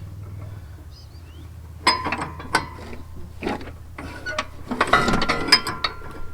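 Metal parts of a lawn tractor's mower deck linkage clinking and knocking as they are worked into place, a few separate clicks followed by a short rattling cluster near the end, over a steady low hum.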